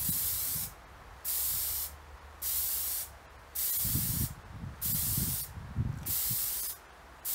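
Aerosol spray-paint can spraying in short bursts, about one a second, each a little over half a second long, laying a first coat of paint on a bicycle frame.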